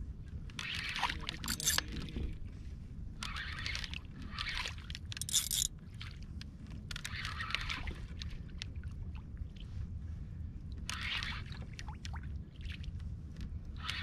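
Water sloshing and splashing around a fishing kayak, in several short hissing bursts over a steady low rumble of wind on the microphone.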